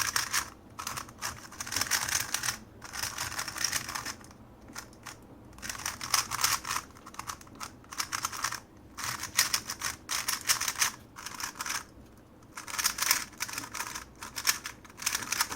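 Cyclone Boys metallic 3x3 speedcube being turned rapidly by hand: dense clicking and scratching of the plastic layers sliding, in bursts of turns with short pauses between. The cube is new out of the box and a little dry inside, with no lubricant yet.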